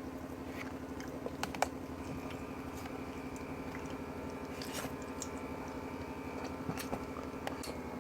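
Faint close-up chewing and mouth sounds of a person eating, with a few soft clicks, over a steady low hum.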